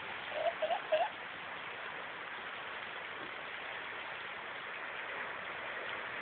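Steady, even hiss of rain and water on a flooded street, with a few short vocal sounds from a bystander between about half a second and a second in.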